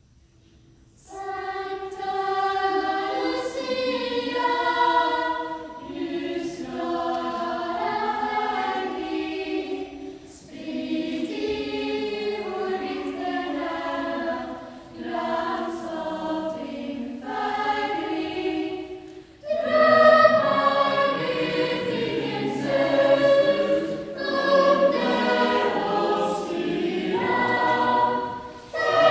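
Lucia procession choir of children and young people singing. They come in about a second in and sing in phrases, with short pauses between them.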